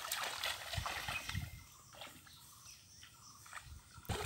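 Hands splashing and sloshing in shallow muddy water: a few splashes in the first second and a half, quieter after that, then another splash near the end.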